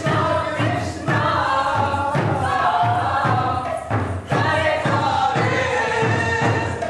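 Several voices singing together in a chant-like melody over a steady low beat, about two beats a second.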